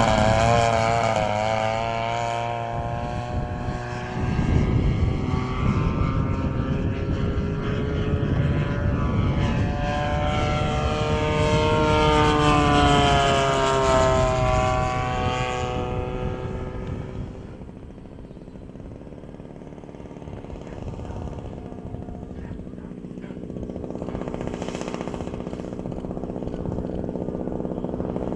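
Large radio-controlled model airplane's propeller engine flying past, its pitch sweeping up and down as it passes and changes throttle. It fades away after about 16 seconds, and then a model engine running steadily at low throttle grows louder toward the end.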